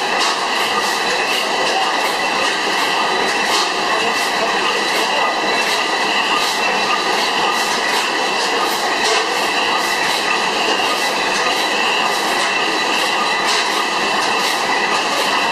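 A 300 hp Miller Improved stationary gas engine running, with a steady mechanical clatter and regular clicks about twice a second.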